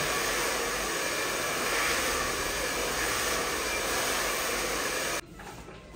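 Handheld hair dryer running steadily as it blow-dries long hair; its rushing noise cuts off suddenly about five seconds in.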